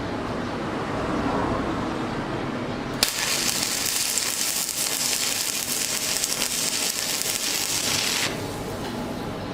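Stick (SMAW) welding arc struck with a sharp click about three seconds in, then crackling and sizzling steadily for about five seconds before it breaks off suddenly. A low steady hum runs underneath.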